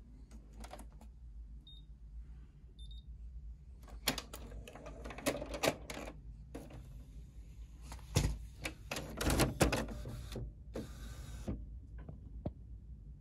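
Plastic clicks, knocks and clatter as the covers and tray of a Canon PIXMA MG6220 inkjet all-in-one printer are opened and handled. The clicks come in two clusters, followed by a short scraping rasp near the end.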